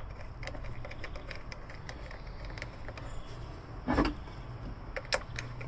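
Small metal clicks and taps of a screw and cable lug being handled and fitted by hand onto a battery terminal clamp, with a louder knock about four seconds in and a sharp click about a second after it.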